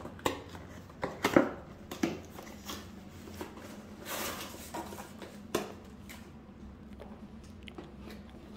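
Cardboard knife-set box being handled and its lid opened: scattered taps, knocks and rustles of the cardboard, the loudest about a second and a half in.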